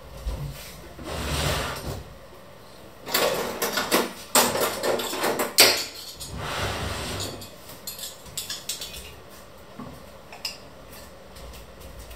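A china plate and cutlery clattering as they are handled and lifted off a wooden board, in a quick run of knocks and clinks between about three and six seconds in, the sharpest one near the middle.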